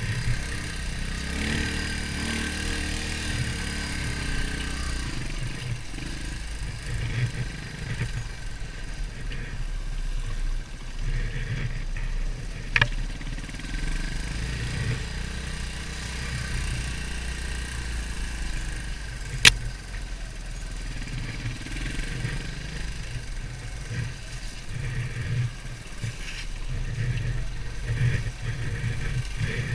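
Beta Alp 200 dirt bike's single-cylinder four-stroke engine running on the trail, its revs rising and falling with the throttle. Two sharp knocks cut through it, one about 13 seconds in and a louder one about 19 seconds in.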